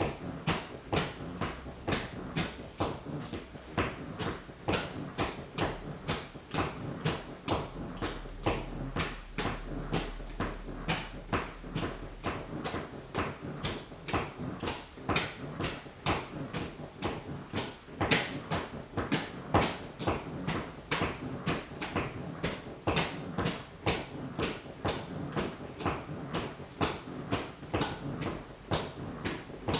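Sneaker toes tapping on a wooden floor, a steady run of sharp taps about two a second.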